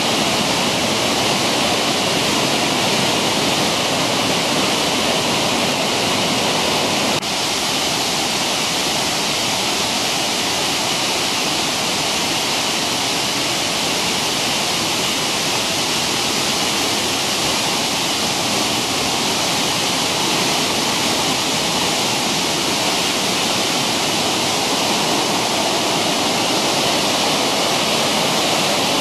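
Steady loud rush of a mountain stream tumbling over rocks and small waterfalls, dipping slightly for a moment about seven seconds in.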